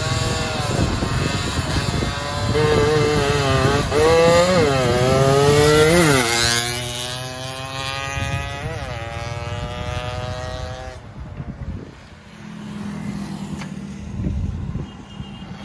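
A 116cc underbone road-race motorcycle accelerating hard past. Its engine note climbs through the gears, dropping sharply at each quick upshift, then falls in pitch as it passes and fades into the distance. Near the end a lower, steady hum of passing road traffic.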